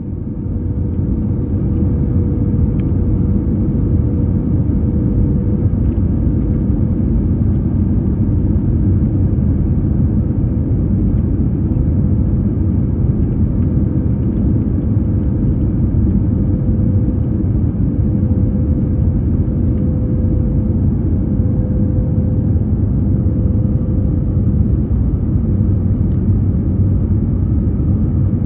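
Steady low rumble of engine and airflow noise inside the cabin of an Airbus A321neo airliner on approach to landing, with a faint steady hum that fades out and back in.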